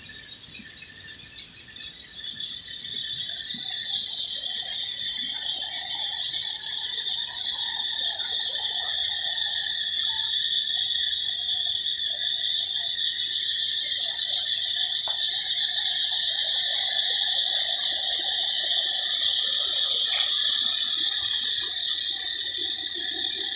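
Loud, steady, high-pitched insect chorus, swelling over the first few seconds and then holding.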